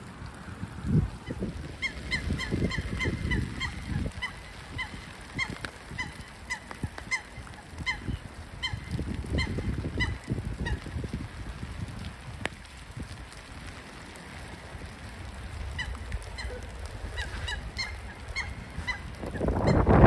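Waterbirds on a lake calling: a run of short, clear calls, several a second at first and then thinning out, and a second run a few seconds before the end. Gusts of wind rumble on the microphone throughout and turn loud at the very end.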